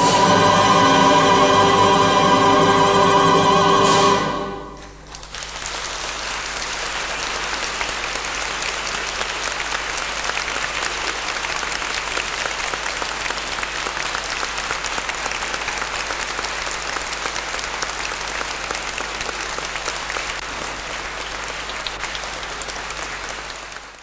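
A soprano with choir and orchestra holds a final chord that cuts off about four seconds in, followed by sustained applause from the audience.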